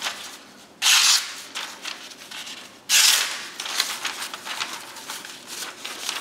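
A sharp knife blade, a Benchmade Valet with M390 steel, slicing through thin phone-book paper held in the air in a paper sharpness test. There are two loud, crisp slicing strokes about a second and three seconds in, with lighter cuts and paper rustling between and after them.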